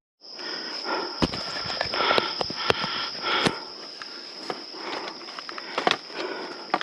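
Footsteps with irregular rustles and sharp snaps, over a steady high-pitched insect drone.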